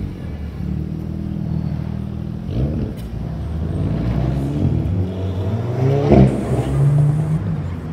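Alpine A110's 1.8-litre turbocharged four-cylinder engine accelerating away, its note rising in pitch twice. There is a sharp crack at the loudest moment, about six seconds in.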